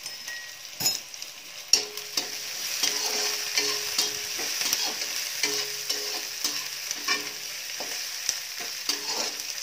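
Chopped onions sizzling in hot oil in a steel kadai while a metal spatula scrapes and taps the pan as they are stirred; they are being fried to light brown. A couple of sharp knocks stand out in the first two seconds.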